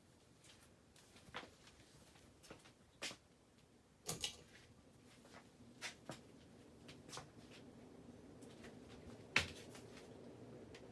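Casablanca Panama ceiling fan running in reverse with slightly noisy bearings: a faint hum that grows stronger from about halfway through, with irregular clicks and ticks, the sharpest a knock near the end.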